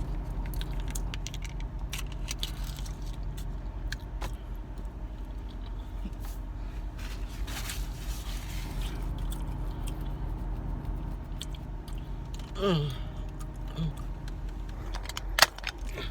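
Sauce packaging being opened by hand: scattered small clicks, crinkles and scrapes over the steady low hum of an idling car. A brief falling voice-like sound comes about three-quarters of the way through, and a sharp snap near the end.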